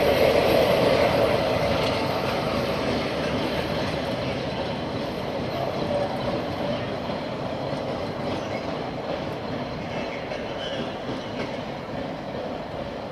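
A passenger train with a Class 47 diesel locomotive on the rear rolls away over the points, its wheels running on the rails. The sound fades steadily as it draws off into the distance.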